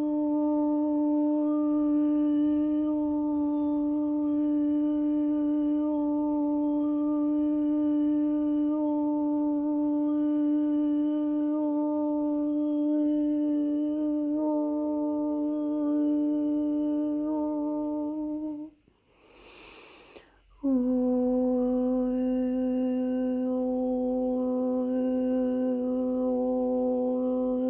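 A human voice humming a long, steady note with a meditative tone. It breaks off for about two seconds with a breath, then resumes on a slightly lower held note.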